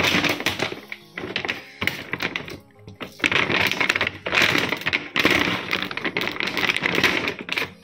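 Crinkling and rustling of a large plastic-laminated dry cat food bag as hands work it open and reach inside. There are two long stretches of dense crackling, with a brief lull a little under three seconds in.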